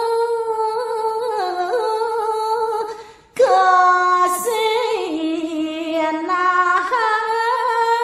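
A woman sings a Balinese geguritan verse solo and unaccompanied, holding long ornamented notes on drawn-out vowels. She breaks off for a breath about three seconds in. Then she comes back in higher and steps slowly down through the melody.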